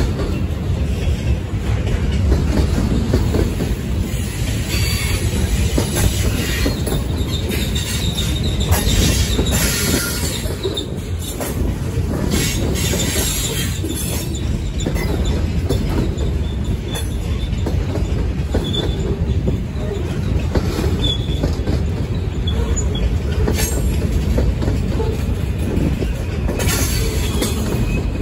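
Freight cars rolling past close by: lumber-loaded flatcars, then boxcars. Their wheels make a steady heavy rumble on the rail, with clacking over the rail joints and high wheel squeals that come and go.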